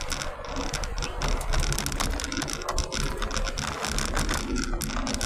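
Low road rumble inside a moving car, overlaid with a rapid, irregular run of clicks and rubbing from the phone that is recording being handled and moved about.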